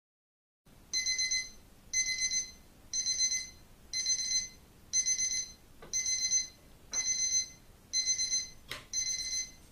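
Alarm clock going off: short groups of quick, high beeps repeating about once a second, starting just under a second in.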